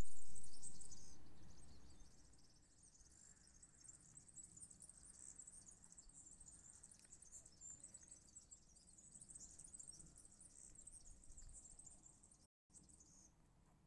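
Open-air hillside ambience: a steady high-pitched chirring of small wild creatures over low wind rumble on the microphone, the rumble loudest at the start and fading over the first two seconds. The sound drops out completely for a moment near the end.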